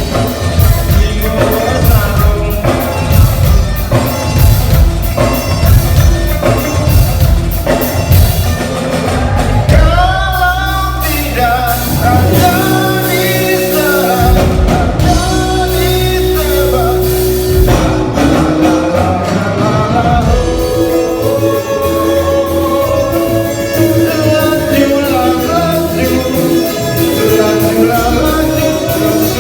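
A band playing rock-style music with a singer. Busy drumming for about the first third, then held chords under the vocal line.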